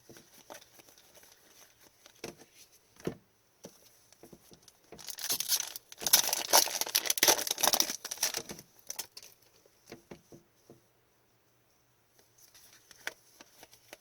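Foil trading-card pack wrapper being torn open and crinkled, with light clicks of cards being handled. The crinkling is loudest in the middle, for about four seconds.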